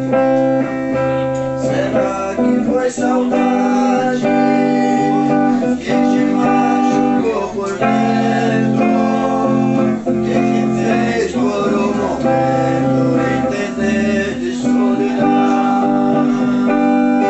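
Les Paul-style electric guitar strumming sustained chords, moving to a new chord about every two seconds.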